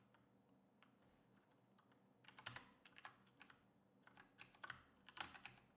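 Faint computer keyboard typing: a quiet first couple of seconds, then a run of irregular keystrokes.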